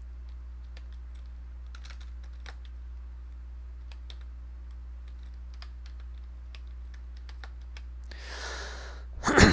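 Computer keyboard being typed on in scattered keystrokes, over a steady low hum. Near the end comes a loud breath.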